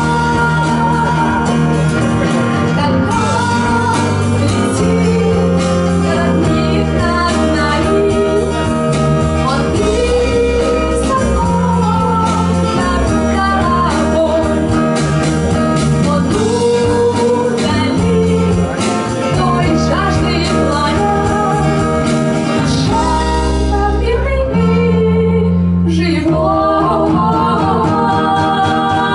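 Live folk band performing: a woman sings the lead melody, with a second female voice, over acoustic guitar and a bass line that changes note every second or two. Near the end the accompaniment thins for a moment and one sharp hit brings the full band back in.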